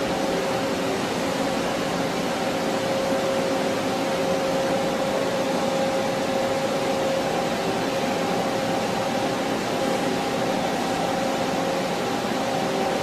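CNC lathe running steadily: an even machine hiss with a constant whine held throughout.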